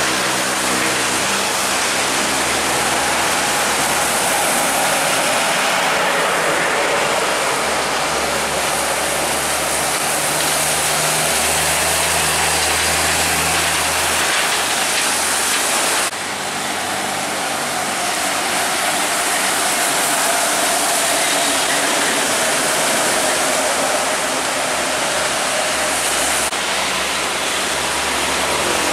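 Trucks passing on a rain-soaked road: a steady hiss of rain and tyres on wet asphalt, with the low drone of heavy diesel truck engines coming and going as the trucks go by.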